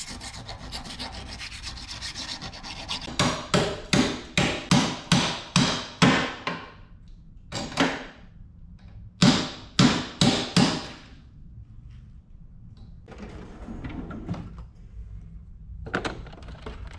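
Round file rasping inside the end of a motorcycle clip-on handlebar, widening the bore so a bar-end brake lever guard will slide in. It starts as a steady scraping, then turns to quick back-and-forth strokes about three a second, with a few more strokes after a short pause. Near the end come sharp metallic clicks, like tools being handled in a socket drawer.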